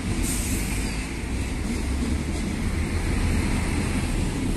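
Diesel-electric locomotive running light engine (no train behind it), its diesel engine a steady low rumble that grows slightly louder as it approaches.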